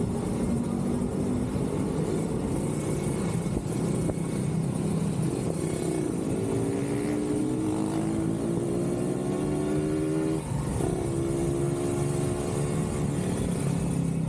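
Kawasaki Ninja 150RR's two-stroke single-cylinder engine running on the move, its note rising as it accelerates. About ten seconds in the note breaks briefly, then it runs steady.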